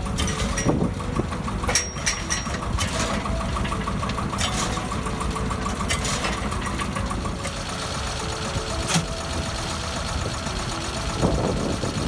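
Shell and auger drilling rig's engine running steadily, with a light regular ticking in the first few seconds and occasional sharp metallic knocks.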